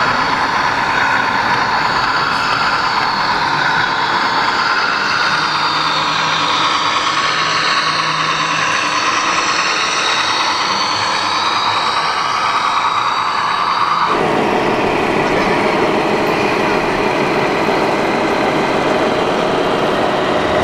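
Scale RC model trucks' onboard sound modules playing diesel truck engine sound through small speakers, with shifting pitch, over the steady noise of a busy exhibition hall. The sound changes abruptly about two-thirds of the way through as the scene switches to another truck.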